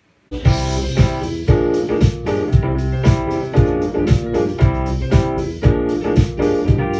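Music from a red Nord stage keyboard: piano-like chords played over a backing track with a steady drum beat of about two strong thumps a second, starting abruptly just after the start.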